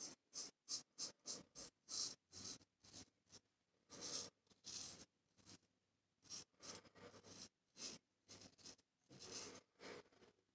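A large straight razor scraping through lathered stubble on the neck and jaw, in a quick run of short rasping strokes, with a few longer strokes about four and nine seconds in.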